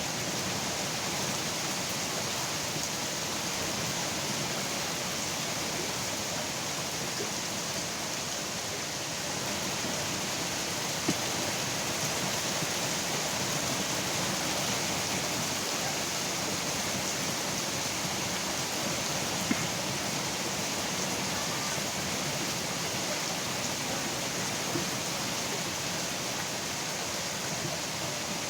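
Steady rain falling, an even hiss, with a few sharp louder taps of drops landing close by.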